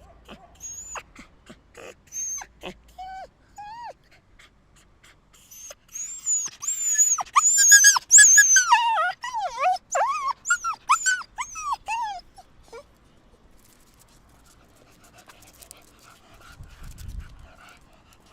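A whiny dog barking: scattered short high yelps and whimpers, then a loud, dense run of rapid high-pitched barks that stops about two-thirds of the way in.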